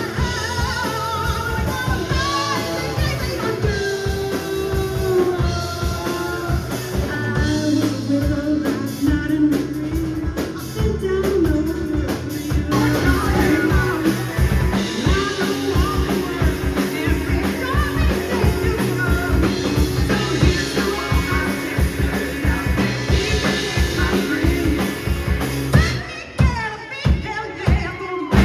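Rock band playing a song with sung lead vocals over drum kit and guitar. Near the end the singing drops away and the drums come forward.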